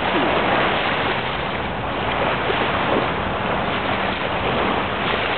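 Small waves washing onto a sandy beach, mixed with steady wind noise on the microphone.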